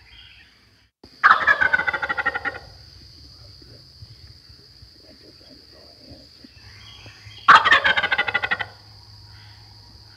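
Wild turkey gobbler gobbling twice, each gobble a loud rapid rattling call lasting about a second, the second coming about six seconds after the first.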